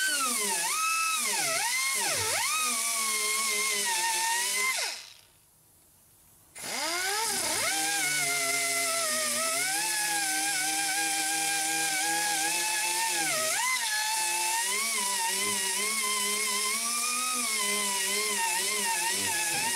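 Pneumatic die grinder with a 120-grit sanding disc grinding down a cured fiberglass patch. Its high whine dips and recovers in pitch as it works. About five seconds in it stops for a second and a half, then spins back up with a rising whine.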